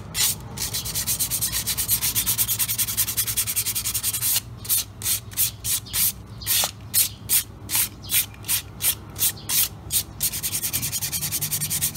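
Sandpaper rubbed by hand over the lining of a motorcycle drum brake shoe mounted on the brake panel. Fast scraping strokes give way about four seconds in to slower strokes about three a second, then speed up again near the end. It scuffs the burnt-black glazed surface off the lining to restore its grip.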